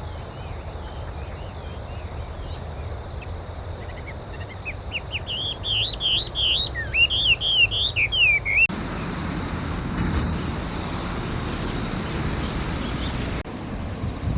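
Chinese hwamei singing a loud run of varied, up-and-down whistled phrases for about four seconds, over a steady high trilling of insects. About halfway through the song breaks off abruptly and an even rushing background noise takes over.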